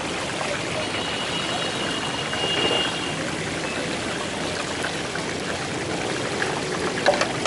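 Whole fish deep-frying in a large wok of hot oil, a steady sizzle and bubbling. A short knock sounds near the end.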